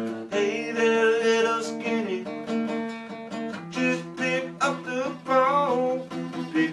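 Acoustic guitar strummed steadily while a man sings long, wavering held notes over it.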